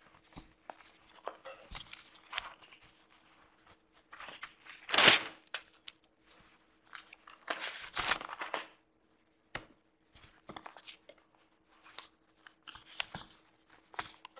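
Irregular rustling and crackling with scattered knocks, loudest about five seconds in and again around eight seconds. A faint steady hum runs underneath.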